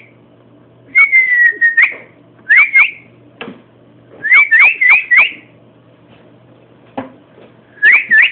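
Pet bird whistling in four bursts. The first is a longer held note about a second in; the rest are quick rising-and-falling whistled sweeps. A couple of faint clicks fall between the bursts.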